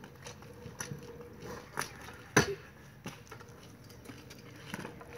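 Kick scooter with Bones Reds bearings rolling fast along a concrete path and passing close by, its wheels clicking over the surface, with one sharp knock about two and a half seconds in.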